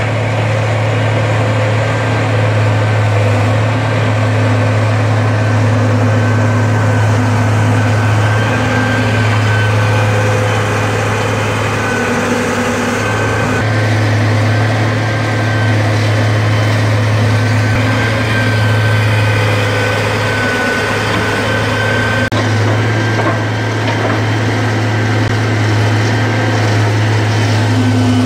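Hitachi wheeled excavator's diesel engine running steadily under load as it digs and lifts soil, with a thin high whine that comes and goes.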